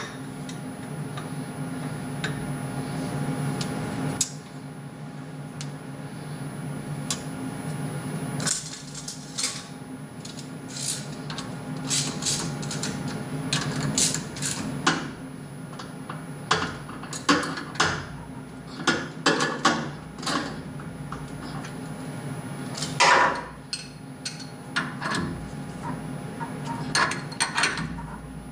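Scattered sharp metallic clinks and knocks of aluminium blocks being seated and clamped in a steel machine vise, over a steady background hum. The knocks come thick and fast from about eight seconds in.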